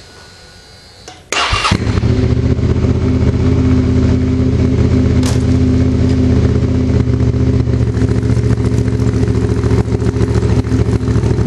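Motorcycle engine starting about a second and a half in, catching at once and then idling steadily.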